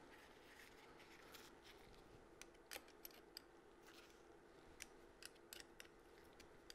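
Faint, scattered metallic clicks of a hex key turning the lever pivot bolt of a radial brake master cylinder, over a faint steady hum.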